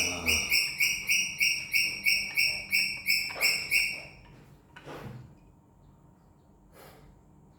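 A fast, very regular run of short high chirps, about four a second, that stops about four seconds in; a few faint knocks follow.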